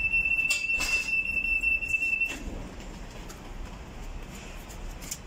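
A steady high-pitched buzzer tone with a few clicks, cutting off a little over two seconds in with a soft thud, after which only quiet room noise remains.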